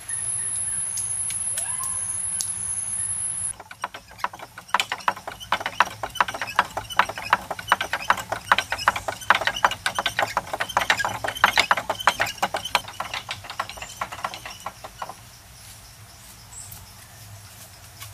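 A steady high-pitched insect drone that stops abruptly a few seconds in, followed by about eleven seconds of quick, irregular wooden knocking from small waterwheel-driven wooden hammers striking into bamboo cups.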